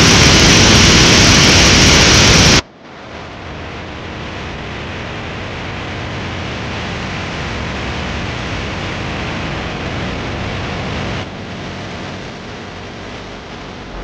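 Steady rushing roar of Victoria Falls' falling water and spray. It is very loud at first, then cuts abruptly about two and a half seconds in to a quieter, even roar that drops a little again near the end.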